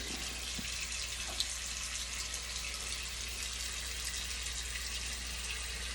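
Water running steadily from a sink faucet, an even hiss over a constant low hum.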